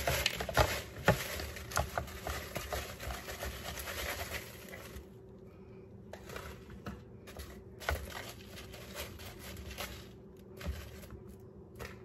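Kitchen handling sounds: scattered light clicks and scrapes of utensils and dishes, with a dry rustling hiss through the first five seconds that then stops.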